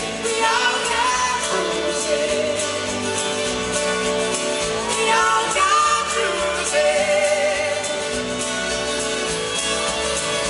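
A live pop-rock band playing, with a male and a female singer sharing the vocals of a duet over drums and bass guitar.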